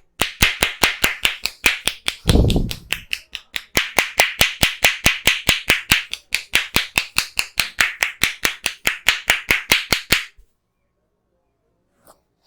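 A barber's hands striking the head in percussive massage, making sharp clapping slaps at about four or five a second, with one heavier, duller thump about two seconds in. The slaps stop about ten seconds in.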